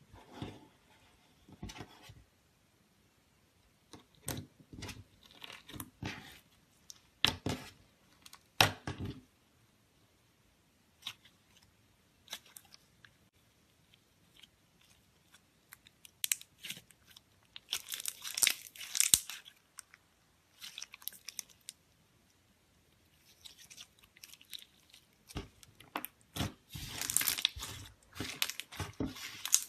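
Slime being squeezed and worked by hand: irregular crackling and popping in several clusters with pauses between, densest near the middle and again near the end.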